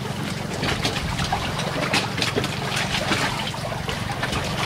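Water trickling and splashing, with many small sharp clicks and knocks as a metal tank is handled, over a steady low hum.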